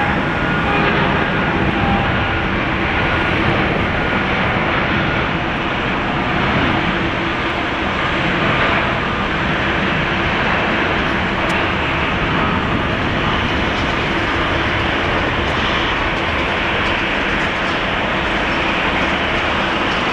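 Boeing 787-8 airliner's Rolls-Royce Trent 1000 turbofans at takeoff thrust: loud, steady jet engine noise through the takeoff roll, lift-off and initial climb.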